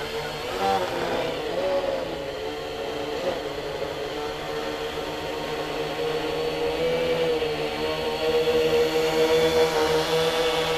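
Electric motors and propellers of an R/C quadcopter humming in flight, the pitch wavering slightly as the throttle shifts. It grows louder near the end as the craft passes close overhead.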